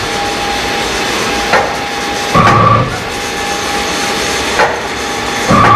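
Konica Minolta Nassenger VII digital textile printer running, its print-head carriage shuttling back and forth across the fabric. Under a steady whine there is a short click, then a louder clunk with a brief whir, about every three seconds, as the carriage reaches the ends of its travel.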